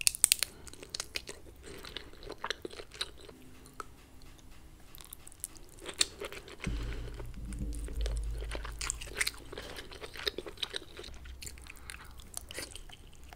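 Close-miked mukbang eating sounds: lobster and king crab meat in creamy Alfredo sauce being bitten and chewed, with wet smacks and many short mouth clicks. A low rumble runs under it for about two seconds around the middle.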